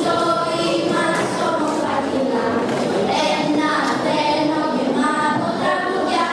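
A small group of young girls singing together into microphones, moving through a melody of held notes.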